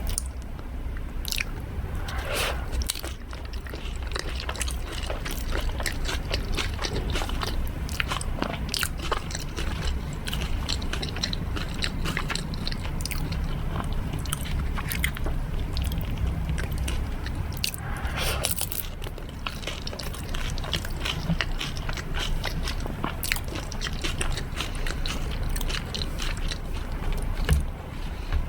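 Close-miked eating of dahi puri: crisp puri shells filled with yogurt, bitten and chewed with many sharp crunches and crackles.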